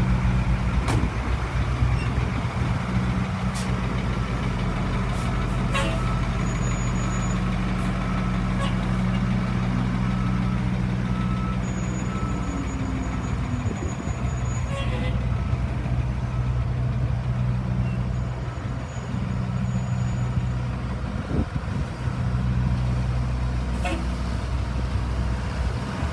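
1982 Ford fire and rescue truck's engine running steadily as the truck pulls away and drives slowly across a concrete lot. The engine pitch shifts briefly about halfway through, and a few short sharp clicks or hisses stand out above it.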